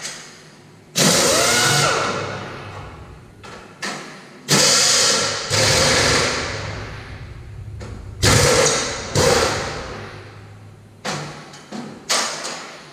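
Cordless impact wrench run in several short bursts on the fender mounting bolts of a Kenworth truck frame, each burst dying away in the shop's echo.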